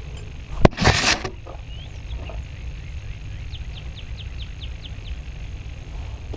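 A sharp click and a short rustling swish near the start, as a mesh net is laid over the camera. Then a steady low rumble, and midway a bird's quick run of about eight short descending chirps.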